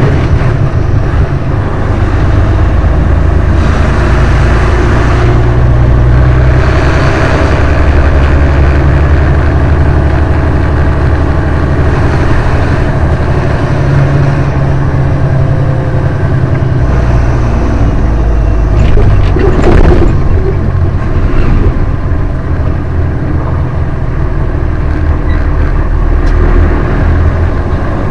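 Western Star truck's Detroit diesel engine running under way, heard from inside the cab, loud and steady, its low note stepping up and down several times as the revs change. A brief knock comes about two-thirds of the way in.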